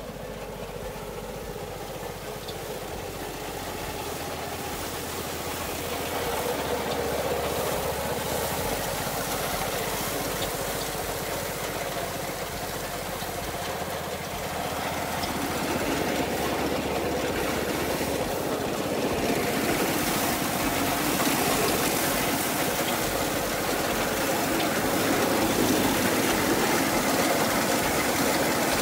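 Small household-scale rice threshing machine running steadily as rice stalks are fed into it by hand. It grows louder over the stretch, most of all in the second half.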